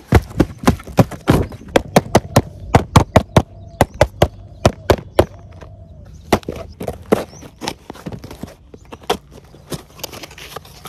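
Cardboard boxes being handled and opened: a quick, irregular run of sharp knocks and taps from boxes and flaps, coming thick for about the first half and then thinning out.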